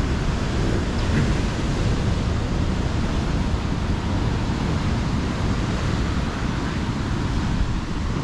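Steady rush of heavy surf on a rough sea, mixed with wind rumbling on the microphone, unbroken throughout.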